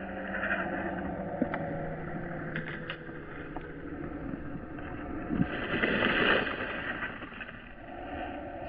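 Small electric RC plane's motor and propeller buzzing at low power as it comes in low over the grass; the buzz fades out about four seconds in. About six seconds in there is a loud rushing noise.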